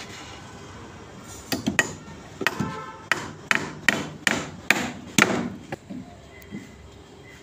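Hammer driving nails into the timber of a wooden footing formwork box: about a dozen quick, sharp strikes starting about a second and a half in, then stopping.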